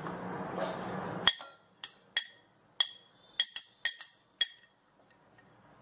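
A steel spoon clinks about ten times against a glass plate and bowl as chopped onion is scraped off into the mix; each tap is a short, bright glassy ring. A steady low hum stops abruptly about a second in, just before the clinking starts.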